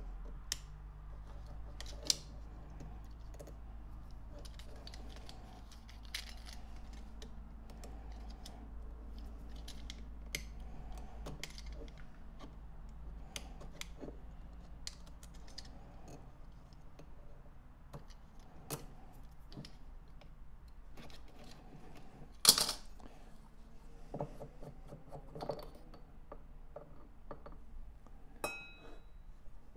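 A utility knife blade scraping and picking a brittle sticker off a painted metal carburettor dashpot: scattered small scrapes and clicks over a low steady hum, with one sharp knock about two-thirds of the way through and a short metallic ring near the end.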